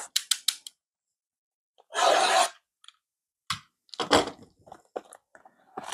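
A cardboard Donruss football blaster box being opened by hand: one short tearing rip about two seconds in, with scattered clicks and rubs of the box being handled before and after.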